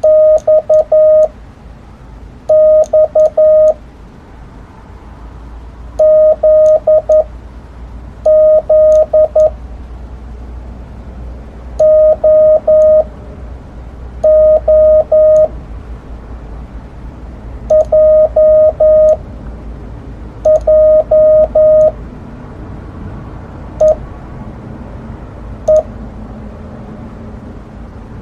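Korean Morse code (CW) sent with a paddle key and heard as the keyer's sidetone: short and long beeps at one steady pitch, in groups of dits and dahs spaced two to three seconds apart, one Korean letter per group. Near the end two groups are a single short dit each.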